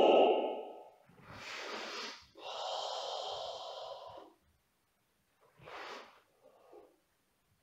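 The tail of a karateka's loud shout falling away, then his heavy breathing between the last kata moves: a short breath, a longer one of about two seconds, and another short breath near the end.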